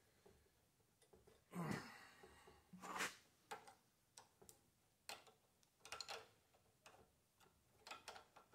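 Faint, scattered metallic clicks and light scraping of an open-end wrench and brass hose fittings being handled and threaded onto oil line ports, with a short rustle about a second and a half in.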